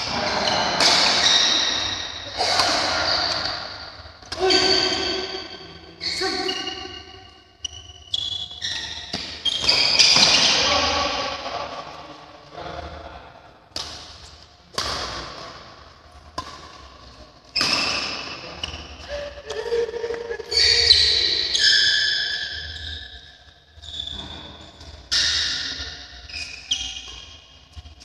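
Badminton rally: repeated sharp racket strikes on the shuttlecock, mixed with short, high shoe squeaks on the court floor.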